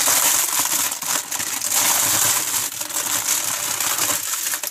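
Clear plastic packaging crinkling and rustling continuously as a sleeve of small bagged diamond painting drills is handled and pulled open.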